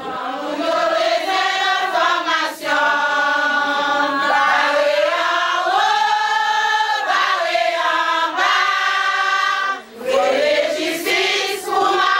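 Group of adults singing together without accompaniment, a literacy-class song whose words are about learning to read and write. Long held notes, with short breaks between phrases.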